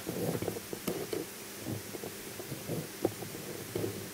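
A person humming quietly with closed lips, in faint, short, low phrases.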